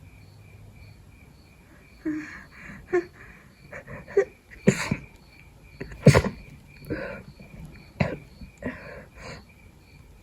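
A person with a head cold sneezing and sniffling in a quick run of short, snotty bursts that begins about two seconds in, the loudest sneeze about six seconds in.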